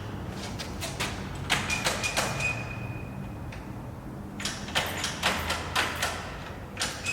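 Clusters of light metallic clicks and knocks from handling a cut motorcycle drive chain and its parts, with a brief thin high ring during the first cluster.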